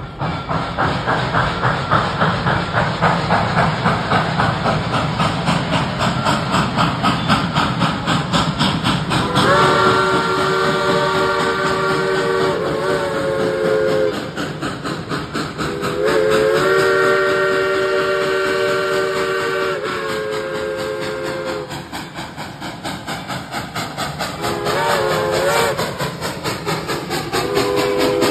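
Steam locomotive No. 425, a 4-6-2 Pacific, working hard as it pulls away, with its exhaust chuffing rapidly and rhythmically. Its chime whistle sounds two long blasts, then shorter ones near the end.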